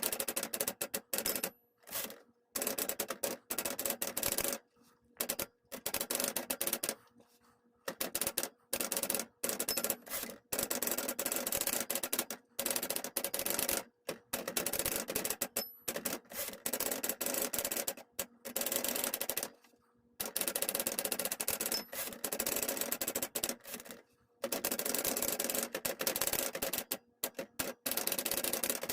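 Sears Challenger II manual typewriter being typed on: fast runs of key strikes, broken every few seconds by short pauses.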